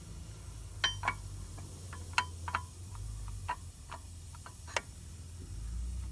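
Irregular light metallic clicks and clinks, about a dozen, a few with a short ring, as brake pads are handled and set into the disc brake caliper.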